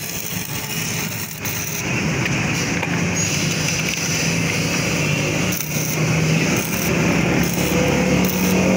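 Electric arc welding on a motorcycle's steel kick-start lever: a steady crackling hiss over a low hum, with brief dips.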